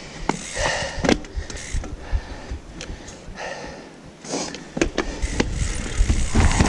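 Mountain bike rattling and knocking as it is ridden slowly over wet roots, with scattered sharp clicks from the bike. Near the end a louder steady rumble sets in as it rolls onto smoother trail.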